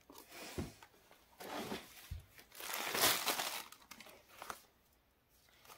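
Plastic wrapping and cloth rustling and crinkling as clothes are unpacked and handled, in uneven bursts, the loudest about three seconds in.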